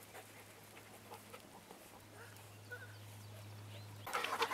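Faint open-air background with a few brief, faint chirps, then near the end a sudden loud panting starts close by, a yellow Labrador retriever breathing hard as it trots past.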